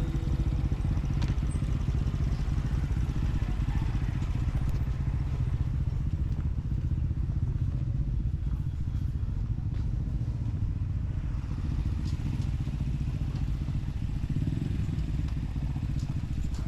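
Honda CT125 motorcycle's single-cylinder engine running steadily while riding, a low, even, rapid thrum.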